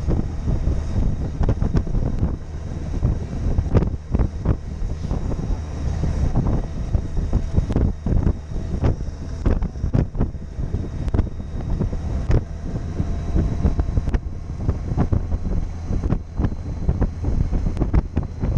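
Wind buffeting the camera microphone in irregular gusts while riding a Honda Gold Wing motorcycle, over the low, steady hum of the bike's engine and tyres.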